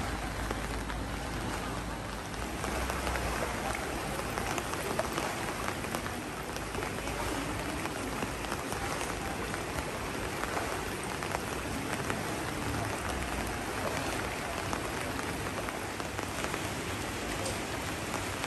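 Steady rain falling onto standing floodwater: an even hiss dotted with many small drop ticks.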